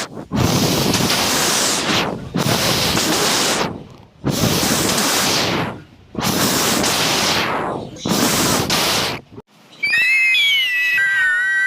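Synthesized 'planet sound': about five loud whooshing bursts of noise, each about a second and a half long, separated by short gaps. Near the end a pitched electronic tone begins, gliding in pitch.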